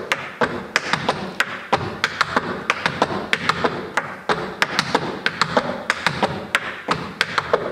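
Clogging shoes striking a wooden dance board in a quick, even rhythm of sharp taps and heavier stomps, dancing basic and Alamo clogging steps.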